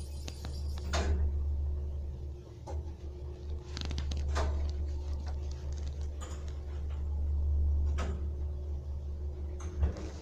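Passenger lift car travelling: a steady low hum with scattered clicks and knocks, and a sharper knock near the end.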